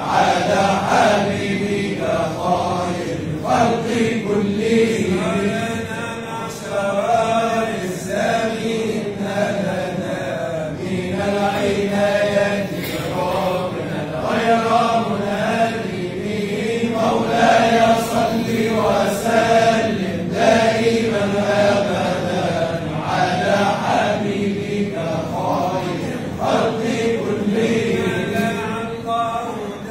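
A group of men's voices chanting together in long, continuous phrases: a devotional chant in praise of the Prophet.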